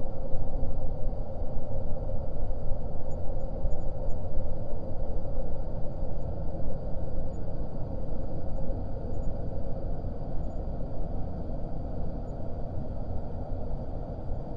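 Dungeon air ambience sound effect: a steady, low rumbling drone with a faint held hum in it.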